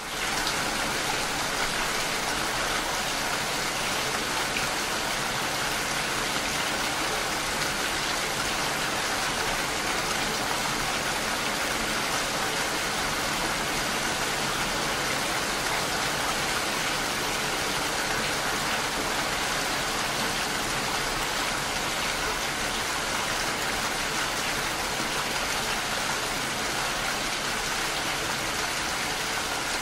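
Steady rain falling, an even, unbroken hiss with no pauses.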